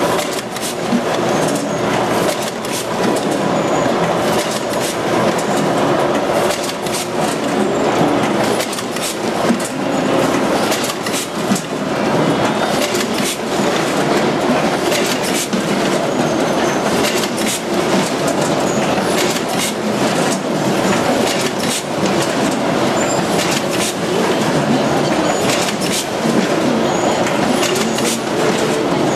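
Net-bag packing machinery running, with belt conveyors and a bag-closing machine rattling steadily and frequent sharp clicks throughout.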